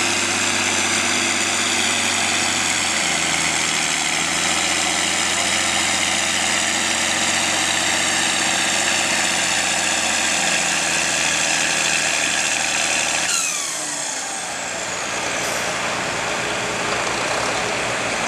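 A John Deere four-wheel-drive farm tractor's diesel engine idles steadily. About 13 seconds in, the low engine note drops away and a high whistle falls sharply in pitch as the engine winds down.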